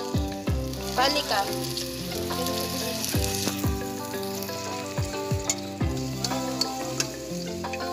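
Chopped garlic sizzling as it fries in a wok, stirred with a metal ladle that scrapes and clinks against the pan. Background music plays over it.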